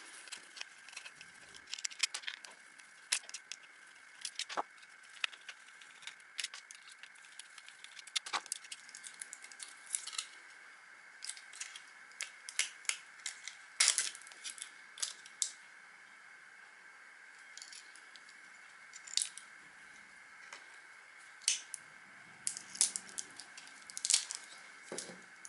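Irregular clicks and light rattles of small plastic and metal parts, coming singly and in quick clusters, as a hair clipper's housing is worked apart to free its electromagnet coil.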